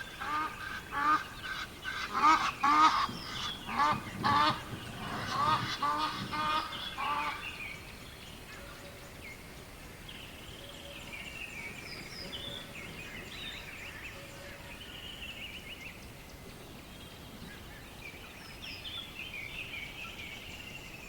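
Birds calling: a quick run of loud, harsh, repeated calls for about the first seven seconds, then fainter, higher chirps.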